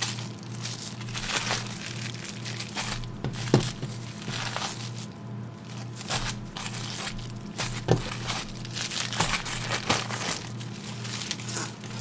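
Plastic deli-meat package being handled, crinkling irregularly, with a couple of sharper knocks. A low steady hum runs underneath.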